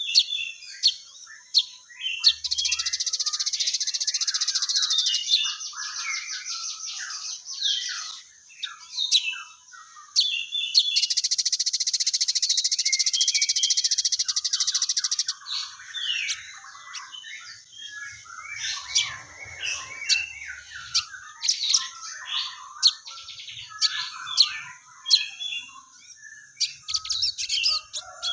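Sunbird (sogon) singing vigorously, a dense run of high chirps and twitters, with two long, very rapid buzzing trills of several seconds each, mixed with the chattering of fighting house sparrows.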